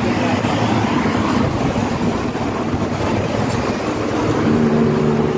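Steady street traffic noise. A vehicle engine's hum grows louder near the end.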